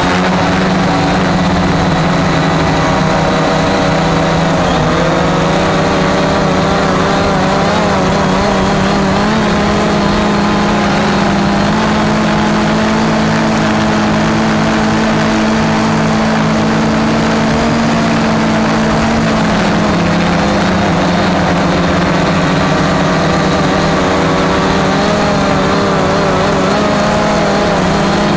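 Cheerson CX-20 quadcopter's electric motors and propellers running in flight: a steady, loud buzzing whine whose pitch wavers slightly as the drone holds and adjusts its position.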